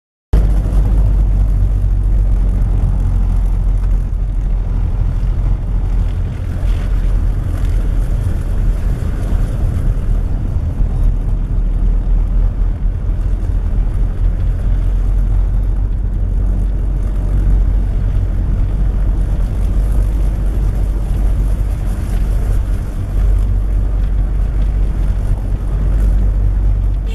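Steady low rumble of engine and road noise heard inside the cabin of a Toyota Innova driving slowly on a snow-covered road on snow chains, starting abruptly just after the start.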